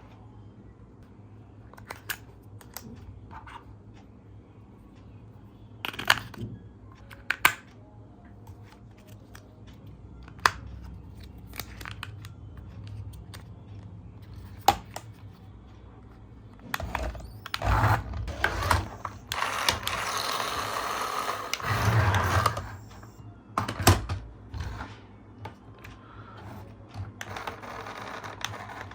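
Hands handling small objects: scattered sharp clicks and knocks, with a few seconds of rustling and scraping a little past the middle.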